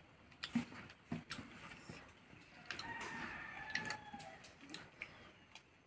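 A rooster crowing faintly, one long held call about three seconds in that dips slightly at its end. Around it, soft clicks and smacks of eating rice with the fingers off a banana leaf.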